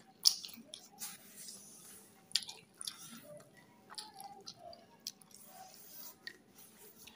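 Fingers mixing cooked rice with fried bora fritters on a plate: soft squishing, with chewing. A few sharp clicks, the loudest just after the start and about two and a half seconds in.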